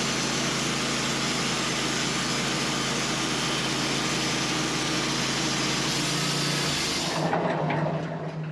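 Sawmill engine running at full throttle while the saw cuts through a hickory log. About seven seconds in the cutting noise stops, and near the end the engine throttles down and the level drops.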